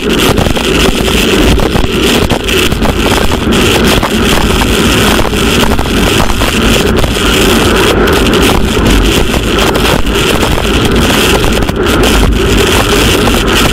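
Loud, steady wind rush buffeting a bike-mounted camera's microphone as a road bike races at about 55 km/h on a wet road.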